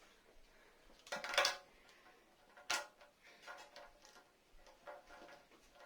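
Handling noises of plastic toy parts and modelling clay: a loud scrape about a second in, a sharp click a little later, then several softer rubs and clicks.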